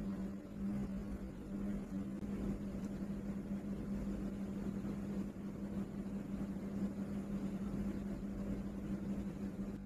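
A steady low hum, one constant tone, over a rough rumbling background noise.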